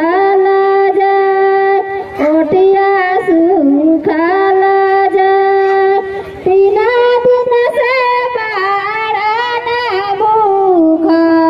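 A high female voice singing a Chhath devotional song (Chhath geet), holding long notes with wavering ornaments between them.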